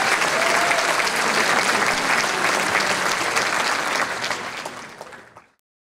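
Large audience applauding, with a short whistle about half a second in; the clapping fades out about five seconds in.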